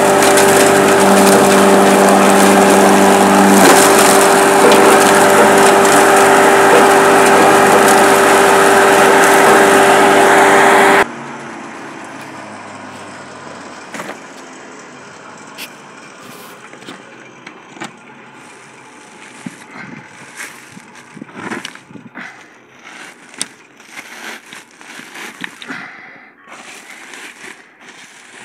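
Feed mill running loudly and steadily while grinding pig feed, with a constant hum; the sound cuts off sharply about eleven seconds in. Scattered soft knocks and rustles follow.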